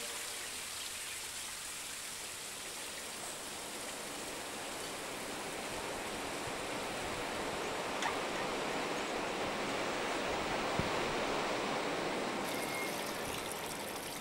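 Steady rushing of running water, growing a little louder in the second half.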